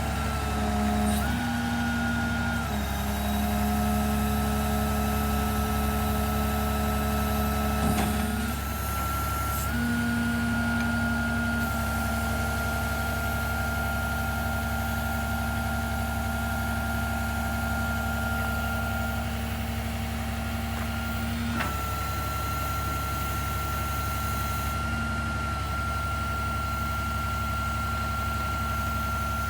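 Peterbilt 330 service truck's diesel engine running with its hydraulic system whining. Several steady whine tones step to new pitches and levels a few times as the load changes, with a few brief clicks.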